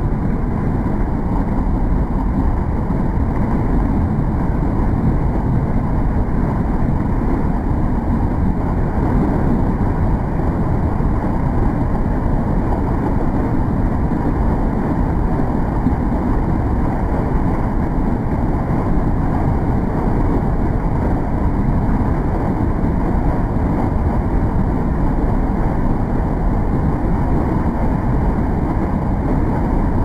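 Waterfall cascading over rocks into a foaming pool: a steady, loud, deep rush of water.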